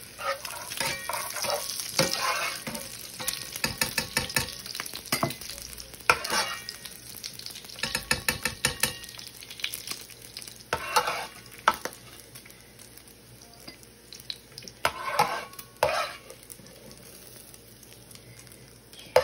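Diced bacon sizzling in a nonstick skillet while a metal slotted spoon stirs and scrapes across the pan. The scraping is busy at first, then comes in a few separate bursts as pieces are lifted out.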